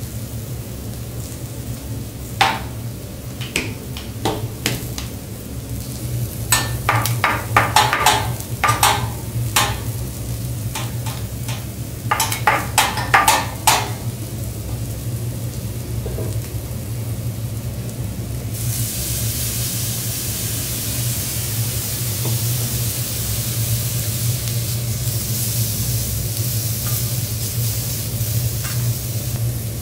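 Seafood frying on a hot teppanyaki griddle, with a series of short clicks and rattles as seasoning is shaken and ground over it. About two-thirds of the way in a loud, even sizzle starts and holds, with steam rising off the griddle, over a steady low hum.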